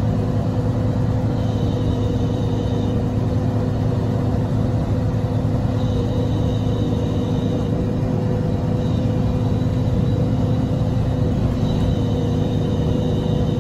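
City bus driving at a steady speed, heard from inside the passenger cabin: a steady low rumble of engine and tyres with a constant hum. A faint high tone comes and goes several times.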